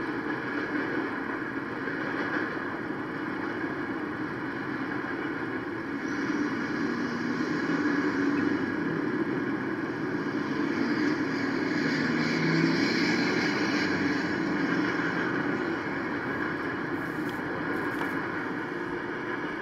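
Steady rumble of vehicle noise that swells for several seconds in the middle and then eases off.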